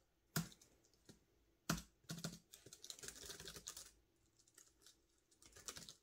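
Typing on a KenKe removable Bluetooth keyboard: two single clicky keystrokes, then a quick run of key presses, a pause, and more typing near the end.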